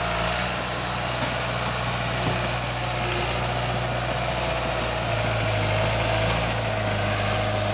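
Bulldozer's diesel engine running steadily as it pushes soil and rock, with a faint higher whine above the engine note. It grows a little louder about five seconds in.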